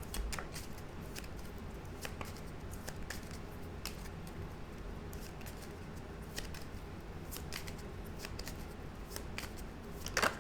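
Faint, scattered clicks and light rustles of tarot cards being handled and turned over, over a steady low hum.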